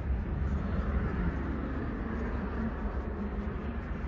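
Steady low rumble with a hiss over it, typical of wind on the microphone beside open water. A faint low hum from the passing freighter's diesel engines comes and goes in the middle seconds.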